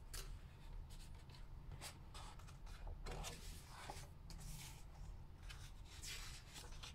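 Picture book being opened and its pages turned and smoothed by hand: a string of soft, faint paper rustles and rubs.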